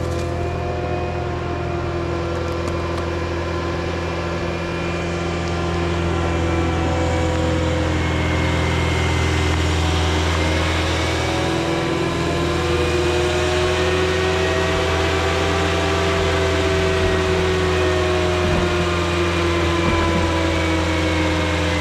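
Caterpillar 259D skid steer's diesel engine running steadily under work, with a whine that slowly rises and falls in pitch.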